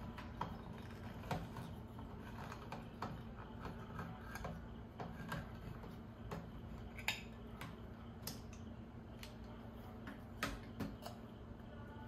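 Hand-crank can opener being turned around a metal can: a run of irregular clicks and ticks as the cutting wheel bites and steps around the rim, over a steady low hum.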